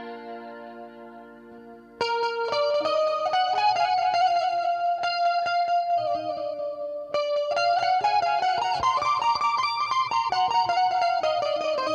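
Amplified Indian banjo, a keyed zither, played through effects. A held chord fades out, then about two seconds in a melody starts abruptly, picked in fast repeated strokes, with a short break about seven seconds in.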